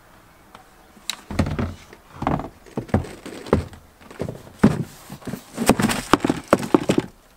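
Yellow seat of a Sea-Doo jet ski being pulled off and set down, with a run of clunks, knocks and rattles from about a second in.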